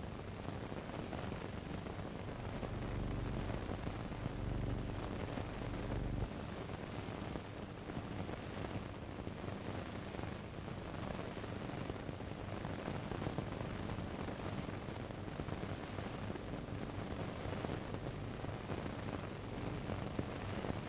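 Steady hiss and low hum of an old analog film soundtrack, with no distinct sound events; the hum is stronger for a few seconds near the start.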